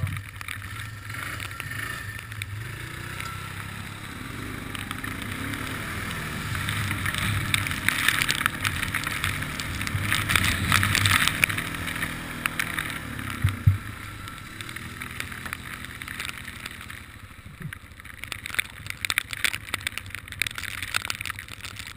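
ATV engine running under throttle as the quad drives through flooded trail water, with the hiss and splash of spray loudest from about 7 to 12 seconds in. A sharp knock comes near 14 seconds, after which the engine runs quieter with scattered clicks and knocks.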